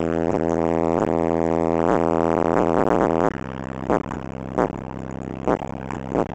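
Car-audio subwoofer playing a loud, steady bass tone that fills the car cabin and distorts, cutting off suddenly about three seconds in, followed by a few short knocks.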